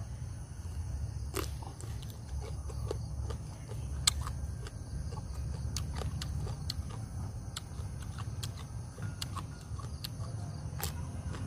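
Someone eating: chewing, with scattered light clicks and taps over a steady low rumble, and one sharper click about four seconds in.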